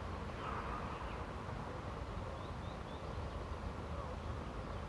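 Quiet outdoor background with steady low noise, and a few faint short high chirps about halfway through.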